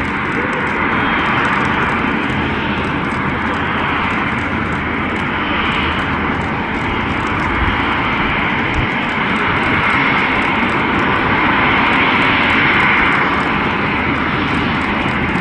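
Airbus A350's Rolls-Royce Trent XWB jet engines running: a steady rushing noise that swells slightly about three quarters of the way through.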